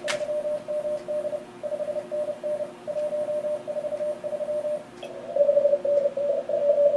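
Morse code (CW) signals from an Elecraft K3 shortwave transceiver's receiver: a single-pitch beep keyed rapidly in dots and dashes, with a fainter lower-pitched station sending underneath and hiss from the band. About five seconds in, a louder station at nearly the same pitch takes over.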